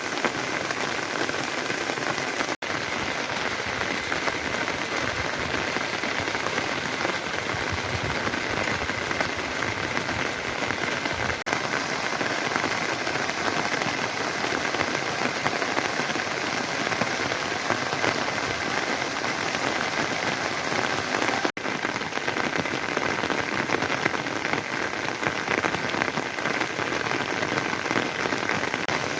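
Steady rain falling, an even hiss that goes on without a break except for two momentary dropouts, one near the start and one about two-thirds of the way in.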